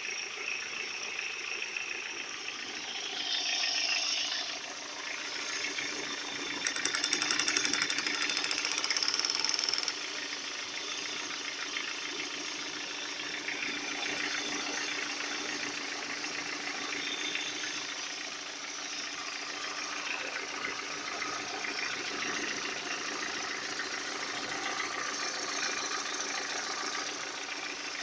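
Lada Priora's four-cylinder petrol engine running with a knock, briefly louder twice in the first ten seconds. The owner suspects a knocking piston in this 150,000 km engine, whose head is noisy.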